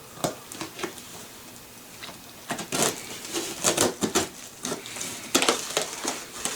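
Cardboard box being cut and torn open: irregular scraping, crackling and rustling, busier and louder from about halfway through.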